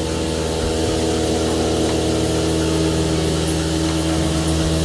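Dairy machinery running with a steady, even hum.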